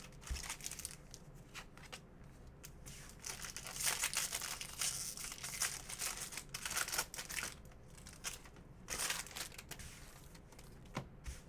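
Foil wrapper of a trading-card pack being torn open and crinkled by hand, a run of crackling rustles that is loudest in the middle and dies down about two seconds before the end.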